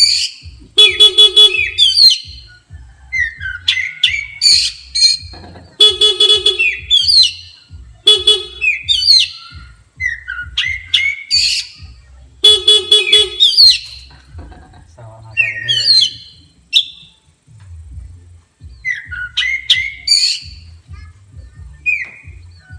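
An Oriental magpie-robin singing loud, sliding whistled phrases in answer to a buzzing horn that sounds three times, each for about a second: the horn is used to provoke the bird into agitated, aggressive song.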